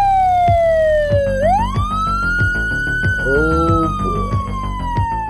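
Police car siren wailing: a slow fall in pitch, a quick rise about a second and a half in, then another slow fall. Background music with a steady beat runs under it.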